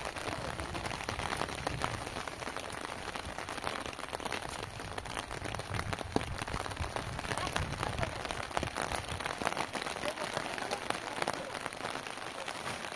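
Steady rain falling, with dense fine drops ticking on plastic sheeting.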